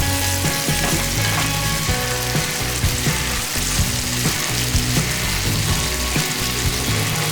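Food frying, a steady sizzle, with background music under it.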